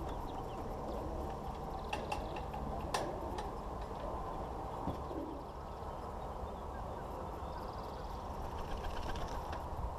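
Steady low outdoor background rumble with a couple of sharp clicks about two and three seconds in, and faint high bird chirps near the end.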